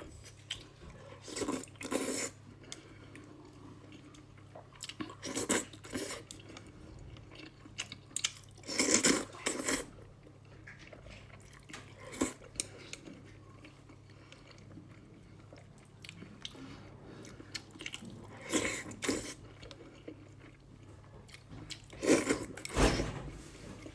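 Close-up eating sounds from a person eating instant noodles with fried egg: short bursts of chewing and mouth noise every few seconds, with quiet gaps between.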